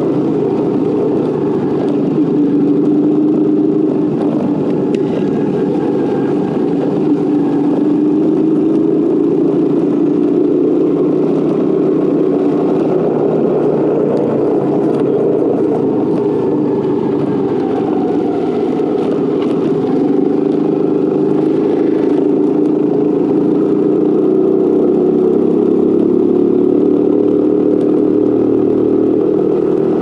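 Motorcycle engine running while being ridden, its pitch rising and falling gently with throttle and speed.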